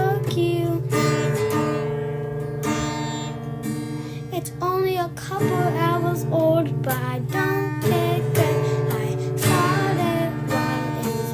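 Music: acoustic guitar with a singing voice over held notes.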